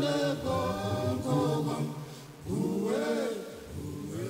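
A choir singing together, with pitches gliding and overlapping and no speech over it.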